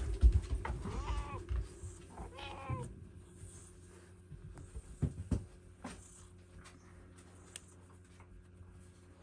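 A domestic cat meowing twice, two short meows about a second and two and a half seconds in. Low thumps come at the start and again about five seconds in.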